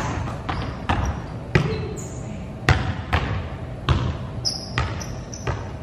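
A basketball bouncing on a gym floor in uneven thuds, about eight in all, each echoing in the large hall, with a couple of short high sneaker squeaks between them.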